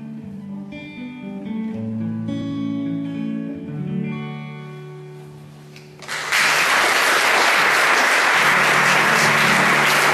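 Acoustic guitar playing the closing chords of a slow folk song, ringing out and fading; about six seconds in, loud applause breaks out and carries on steadily.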